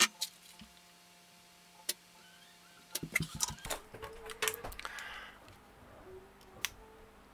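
A few isolated clicks, then from about three seconds in a run of clicks, knocks and rustling as a Raspberry Pi 4 board wrapped in aluminium foil is handled and lifted off its holder, the foil crinkling.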